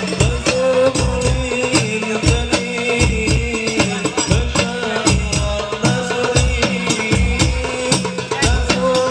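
Sholawat music from a hadroh-style percussion ensemble: a steady beat of deep frame-drum strokes under jingling tambourine, with a held melodic line above.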